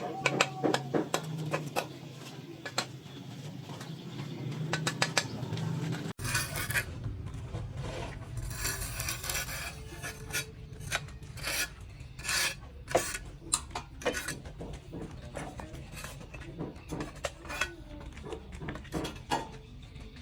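Hand tools scraping and rasping on sand-cement plaster in repeated short strokes, with light tapping clicks. The sound changes abruptly about six seconds in.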